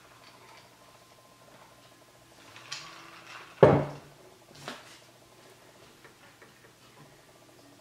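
A glass mason jar of iced water set down on a table with one sharp knock about three and a half seconds in, lighter clicks of glass and ice just before and after. Then faint tapping of a laptop keyboard.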